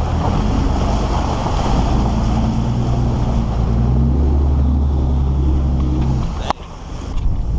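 Pickup truck engine running steadily under load while the truck ploughs through a muddy flooded track, with water spraying and splashing along its side. A little after six seconds the engine sound drops away suddenly with a sharp knock, followed by gusts of wind on the microphone.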